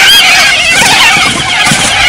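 A dense, continuous chorus of many overlapping warbling, chirping animal calls.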